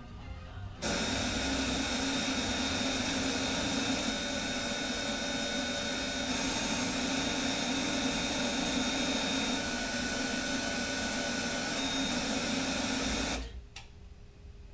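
Loud, steady, harsh buzzing noise with held tones from the TV's sound output while the Samsung PN58A550 plasma shows a scrambled picture. It starts abruptly about a second in and cuts off suddenly near the end as the faulty TV resets itself.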